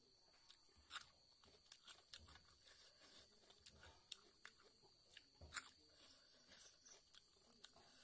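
Close-up eating sounds: chewing and crunching with soft mouth clicks and smacks at irregular moments, the loudest about five and a half seconds in.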